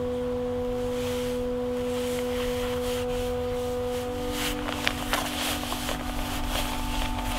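Sustained pure drone tones, several held pitches stacked together, with the lowest one stepping slightly higher about four seconds in. A low rumble runs underneath, and from about four seconds on there are scattered light clicks and rustles.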